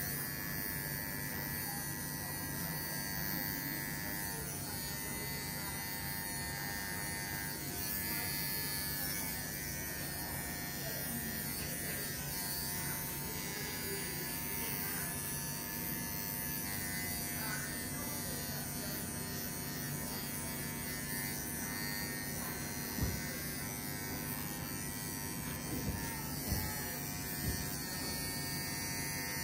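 Cordless electric pet hair clipper buzzing steadily as it cuts through a Scottish terrier's coat on the neck and chest. A few short knocks stand out in the last several seconds.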